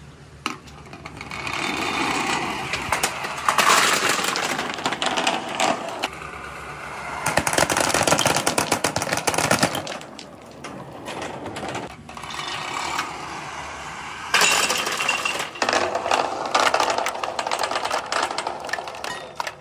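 Many billiard balls and other balls rolling and clattering together down plastic tubes and pegboard slopes: a dense, rapid rattle of knocks. It swells into three long waves of clatter, with quieter rattling between them.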